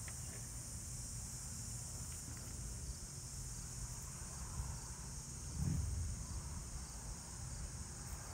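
Steady high-pitched insect chirring over a low background rumble, with one soft low thud a little past halfway.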